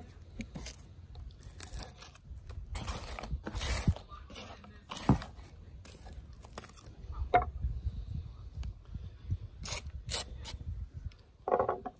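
A knife blade shaving and scraping a fatwood stick, resin-rich pine, into curls and dust: a series of separate scraping strokes with pauses between them.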